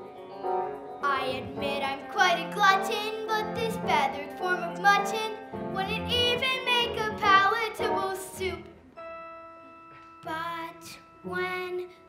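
A child's voice singing a musical-theatre song over instrumental backing, with a wavering vibrato on held notes. About nine seconds in the voice pauses, leaving steady held chords, and short sung notes come back near the end.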